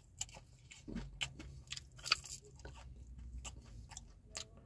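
A man biting and chewing a fried bone-in chicken wing close to the microphone: a string of sharp, irregular crunches and mouth clicks.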